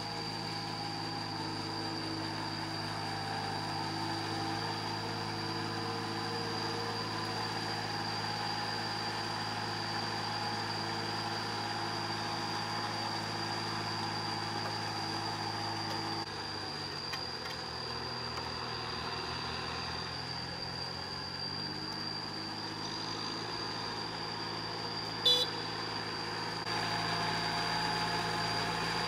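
Small cage-wheeled farm tractors' engines running steadily while working a flooded rice paddy. Around the middle the engine note drops and slowly climbs back, and a single sharp clank comes about 25 seconds in.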